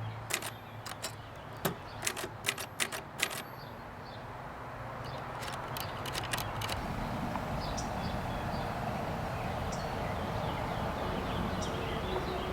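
Facit 1620 manual typewriter being typed on: about ten sharp keystroke clacks over the first three and a half seconds. Then the typing stops and a steady low rumbling noise swells up and holds, with faint high chirps.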